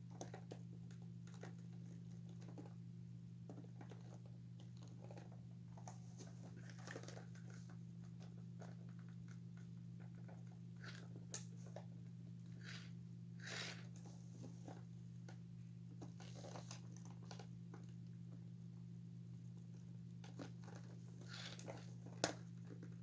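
Faint, scattered small clicks and short scrapes of hands working plastic parts and metal staples, as staples are lined up to reattach an animatronic figure's head. A steady low hum runs underneath.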